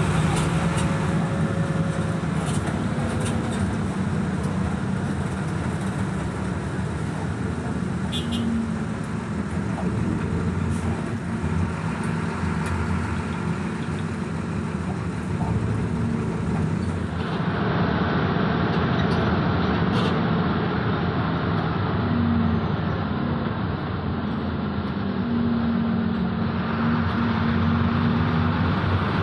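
Bus engine and road noise heard from inside a moving bus cabin: a steady low drone, with the engine note strengthening briefly a few times as the bus moves through traffic.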